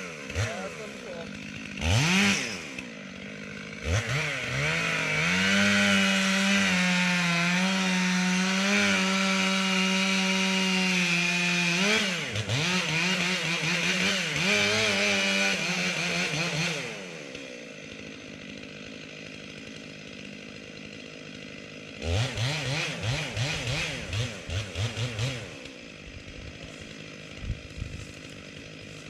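Gas chainsaw revving up and cutting into a dead tree, held at a steady full-throttle pitch for several seconds, then blipped a few times and dropped to idle. It revs in a quick series of short bursts again and settles back to idle near the end.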